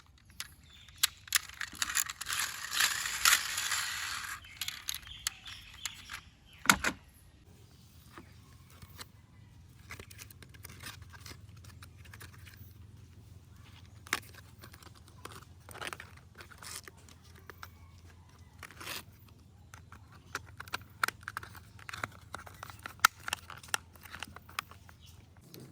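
Small plastic toy parts being handled and fitted together, giving scattered clicks and taps. About two to four seconds in there is a stretch of rustling and tearing, like packaging being opened or crumpled.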